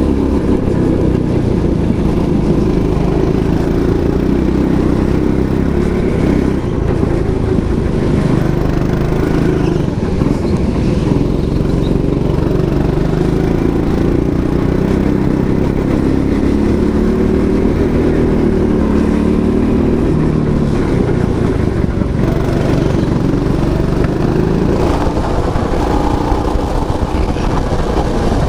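A go-kart's small engine running under load, heard from on board the kart. Its pitch rises and falls again and again as the throttle is opened and lifted through the turns.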